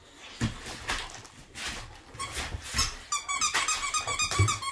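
Gift-bag paper rustling, then about three seconds in the squeaker inside a plush teddy toy squeaked rapidly many times.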